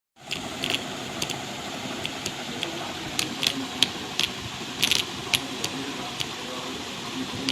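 A small DC motor running with a steady whir, with sharp clicks and rattles scattered through it.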